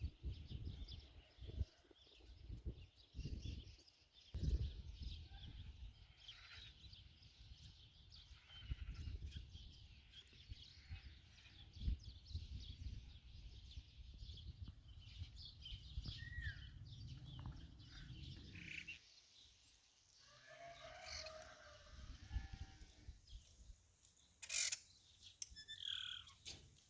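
Faint chorus of birds chirping and calling, with irregular low rumbling bumps on the microphone through the first two-thirds. A short farm-animal bleat comes about three-quarters through, and a couple of sharper bird calls near the end.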